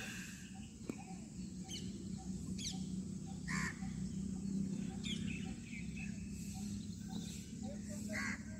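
Birds calling outdoors, a handful of short scattered calls, over a low steady hum and a faint regular ticking.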